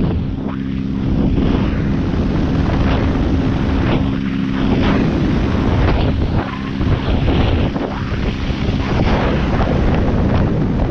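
Wind buffeting the microphone of a camera moving fast over water, mixed with the rush of wake spray and the steady drone of the tow boat's engine.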